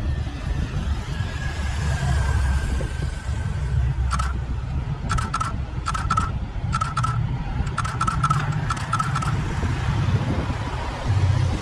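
A race motorcycle and a small group of road cyclists pass along a town street, over a steady low rumble. From about four seconds in, short metallic clangs ring out repeatedly for about five seconds.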